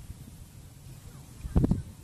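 Faint outdoor background with one brief, loud, low thump about one and a half seconds in.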